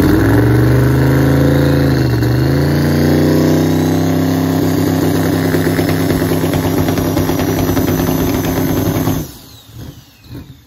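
Twin-turbo drag car's engine revved hard and held at high rpm in a boost test, its pitch dipping once about two seconds in and then steady while the turbos' whistle slowly rises as boost builds. About nine seconds in it lets off: the engine note drops away and the turbo whine winds down.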